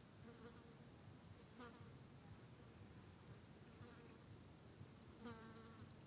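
Forest insects chirping faintly in a steady high-pitched pulse, a little over two chirps a second, with a short lower call about five seconds in.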